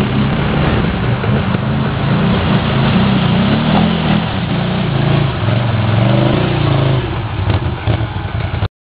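Quad bike (ATV) engine revving up and down repeatedly as it churns through deep mud. The sound cuts off suddenly near the end.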